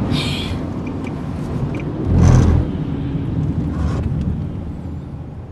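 Road and engine noise inside a moving car, a steady low rumble with a brief louder swell about two seconds in.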